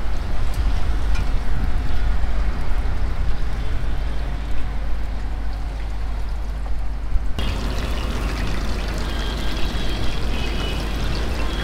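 Hot oil sizzling steadily as skewered chicken pieces deep-fry in a wide, shallow steel pan, over a low rumble. About seven seconds in, the sizzle suddenly turns brighter.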